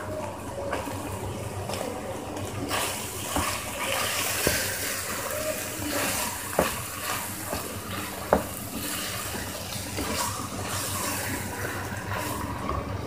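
Minced meat and freshly added chopped tomatoes sizzling in a non-stick pan as a spatula stirs them, the sizzle growing louder a couple of seconds in. A few sharp knocks of the spatula against the pan, the loudest near the middle.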